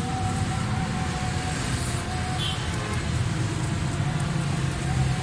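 Steady low rumble of background vehicle noise.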